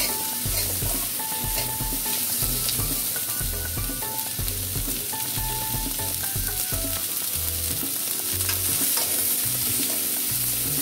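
Sliced onions sizzling in hot oil in a metal kadhai, stirred with a metal spoon that scrapes and clicks against the pan again and again.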